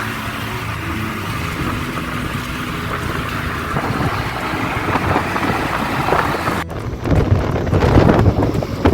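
Car driving, heard from inside: a steady rumble and hiss of road and engine noise. Near the end it changes abruptly to a louder, uneven rumble.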